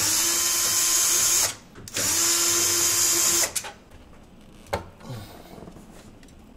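Cordless drill-driver running in two steady bursts of about a second and a half each, a short pause between them, as it backs out the screws holding a graphics card's bracket in a PC case. A few light clicks follow.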